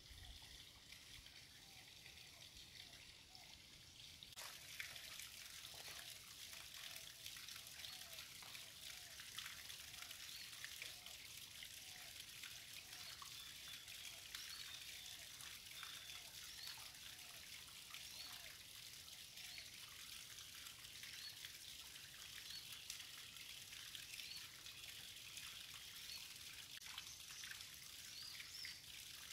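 Faint trickle of flowing stream water, growing a little stronger a few seconds in. A small creature's short call repeats about every two-thirds of a second through the middle, with a few higher chirps later.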